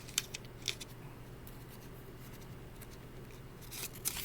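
Paper pages of an old picture book being handled and turned, its binding coming apart: a few sharp paper clicks and rustles in the first second and more rustling near the end, over a steady low hum.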